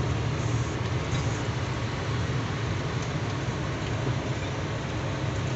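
Steady low drone of a heavy truck driving at highway speed, heard inside its cab: engine and road noise with no change in pace.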